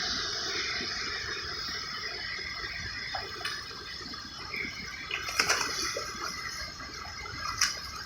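Steady sound of moving water that slowly fades, with two sharp knocks about five and a half and seven and a half seconds in.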